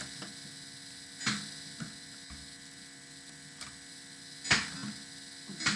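Steady electrical mains hum, with a few short sharp clicks scattered through it, the loudest about four and a half seconds in.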